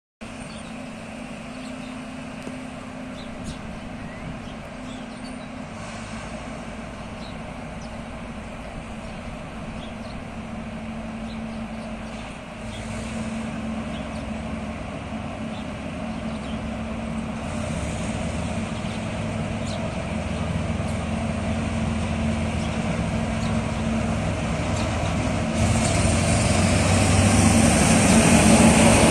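GE U10B diesel-electric locomotive's engine running as it hauls a passenger train slowly toward the listener, with a steady low hum. It grows steadily louder, stepping up about halfway and again near the end.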